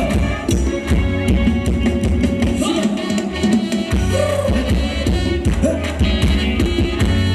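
Live Thai ramwong dance band playing: a drum kit keeps a steady dance beat under bass and a pitched melody line. The bass drops away for about a second around three seconds in, then the full beat comes back.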